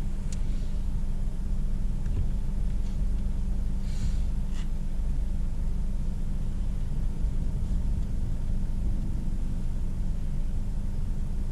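Steady low rumble heard inside a parked car's cabin as a storm blows outside, with a couple of faint short hisses about four seconds in.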